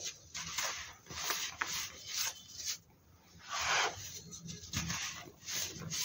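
Hands crushing and crumbling chunks of baking soda into loose powder: a string of dry crunches and gritty rubbing, several a second, with the loudest crunch about three and a half seconds in.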